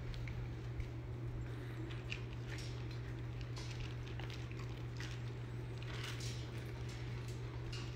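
Soft, scattered rustles and brushing of a hand rubbing a Pembroke Welsh corgi puppy's belly and chin on a fleece blanket, over a steady low hum.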